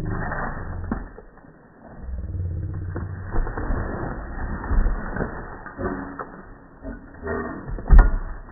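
A refrigerator being smashed apart: a series of knocks and crashes, with drawn-out low creaking in between. The loudest blow comes near the end.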